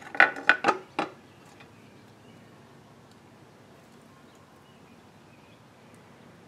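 Kawasaki Ninja 500 engine's valve cover being pulled off, knocking against metal: about five sharp clanks in the first second, then only faint room noise.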